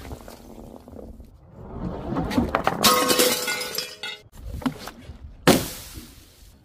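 A heavy ball smashes a large clear glass water jug: a crash of breaking glass with ringing shards about three seconds in. About two seconds later comes a single sharp, loud impact.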